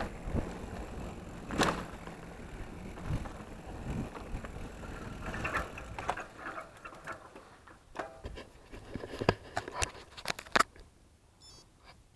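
Mountain bike rolling over a dirt trail: tyre and gravel noise with wind on the microphone, and the bike's chain and frame rattling with scattered sharp clicks and knocks. The noise dies down near the end as the bike comes to a stop.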